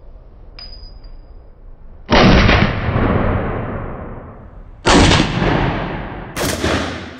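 Three shots from an HK93 semi-automatic rifle in .223 Remington, the second nearly three seconds after the first and the third a second and a half later. Each crack rings out and fades slowly in the reverberant indoor range.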